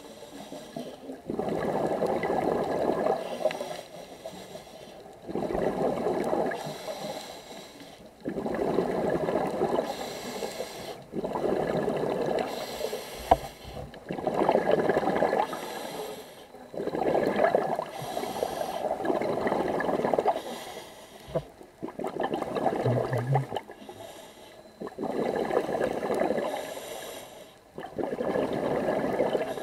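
Scuba diver breathing through a regulator underwater: a rush of exhaled bubbles every three seconds or so, with quieter pauses between breaths.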